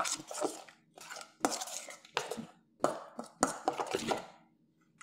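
Metal spoon stirring a thick yogurt-and-spice marinade in a stainless steel bowl, scraping and clinking against the bowl in about six separate strokes. The stirring stops about a second before the end.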